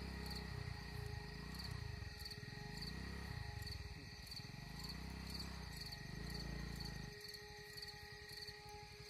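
Insects, crickets or cicadas, chirping in a steady, regularly repeating pattern. Under it runs a low rumble that stops abruptly about seven seconds in.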